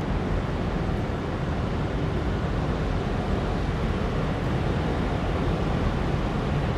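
Wind buffeting the camera's microphone: a steady low rushing noise with irregular rumbling gusts at the bottom.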